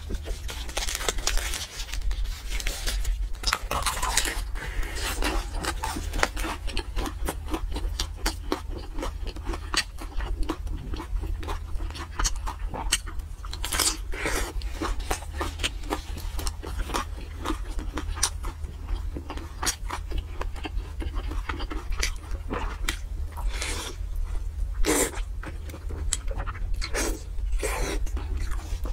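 Close-miked eating sounds: continuous wet chewing and smacking with many short, crisp crackles as fried pastry and braised pork belly are bitten and chewed. A steady low hum runs underneath.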